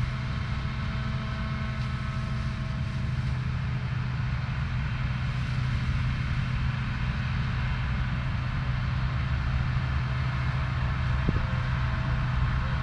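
Claas Lexion 430 combine harvester running in a steady low drone while threshing rapeseed.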